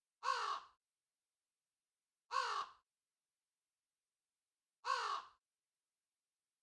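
A crow cawing three times, each caw about half a second long and harsh, a little over two seconds apart, with dead silence between the calls.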